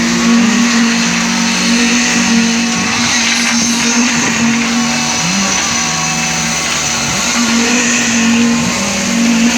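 Motor of concrete-pouring machinery running under load: a steady whining hum whose pitch sags briefly about five seconds in and again near the end, then recovers.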